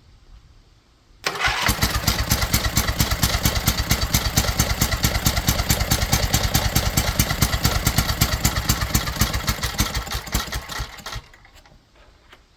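Rebuilt Intek twin-cylinder small engine firing on its one remaining piston: it catches suddenly about a second in, runs with rapid, rough-edged pulses, then cuts out after about ten seconds.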